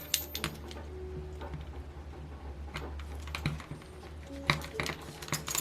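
Scattered light clicks and metal taps from handling small model-engine parts and tools on a workbench, with a few sharper clicks near the end, over a steady low hum.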